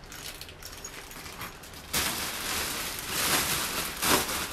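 Clear plastic packaging wrap rustling and crinkling as it is handled, faint at first and louder from about halfway through.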